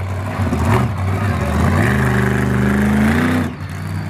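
Incinerator monster truck's supercharged V8 engine running hard. The revs climb about two seconds in, hold high, then fall off as the throttle is lifted near the end.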